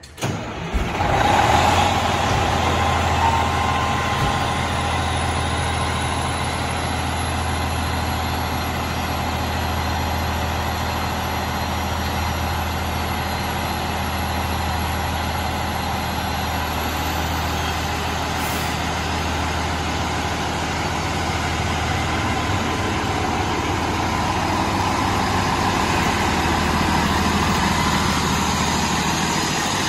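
Diesel engine of a Pierce fire engine starting with a sudden jump in loudness, then running steadily as the truck pulls out of its bay. A faint high whine slowly rises in pitch over the first half.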